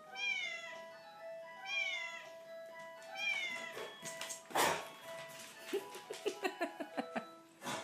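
Three near-identical cat meows, each falling in pitch, about a second and a half apart, played as a recording over a tinkly music-box-like tune. Then a short burst of noise and a run of quick clicks from a large dog's claws on a hardwood floor.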